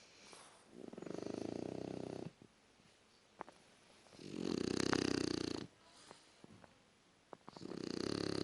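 Snoring: three long snores about three and a half seconds apart, each with a fast flutter, the middle one the loudest.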